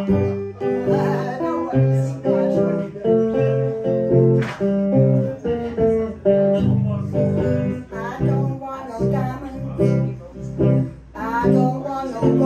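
Hollow-body archtop guitar played live, picking a run of single notes and chords, with a woman singing along in places, more clearly in the last few seconds.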